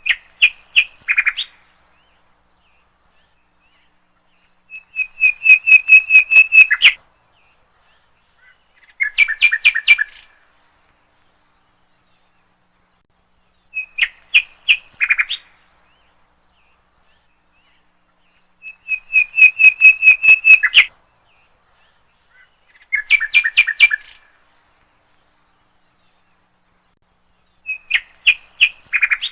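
Bird song: short phrases of rapid chirps and trills, one every four to five seconds, with silence between. The same three phrases repeat about every 14 seconds, like a looped recording.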